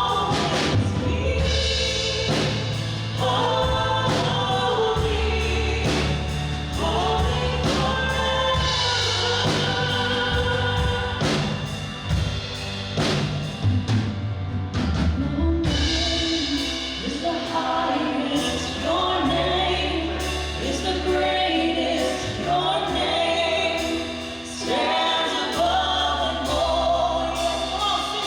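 Congregational worship music: a group of singers with a band, steady bass and drums.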